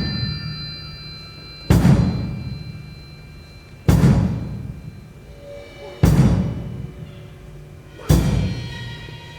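Live percussion music: a low drum struck hard four times, about every two seconds, each stroke ringing out and dying away, over held high ringing tones.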